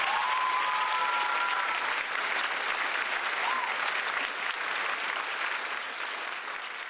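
Crowd applause, a steady dense clapping with a few rising whistles in the first two seconds, easing off slightly toward the end; a stock applause effect over the outro screen.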